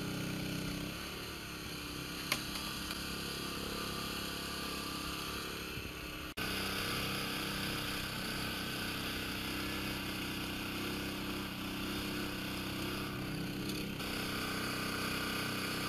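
Small engine running steadily, the generator powering an electrofishing rig. There is a single sharp click about two seconds in, and the sound cuts out for an instant about six seconds in.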